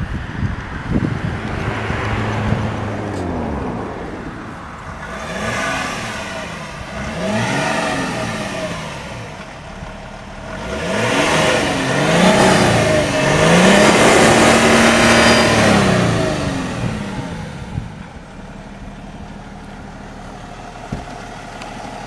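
BMW E39 525d's 2.5-litre straight-six diesel on its stock exhaust, idling, then revved several times from about five seconds in, each rev rising and falling. It is then held high for a couple of seconds before dropping back to a steady idle for the last few seconds.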